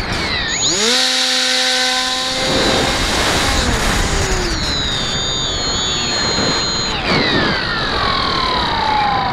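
Onboard sound of the AirWing Wingsurfer RC plane's motor and propeller whining through a loop, with wind rushing past. The whine jumps up in pitch just after the start, holds steady for about two seconds, wanders in the middle, then falls steadily over the last couple of seconds.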